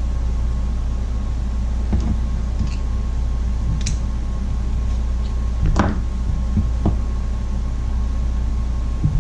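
A few scattered small clicks and taps of hand tools and small metal parts as a chainsaw carburetor is taken apart to reach its diaphragm cover, over a steady low hum with a thin high tone.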